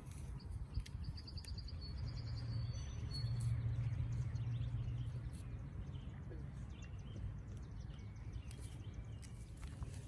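A songbird sings a rapid trill of repeated high notes about a second in, over a steady low rumble that swells for a few seconds in the middle, with scattered faint clicks.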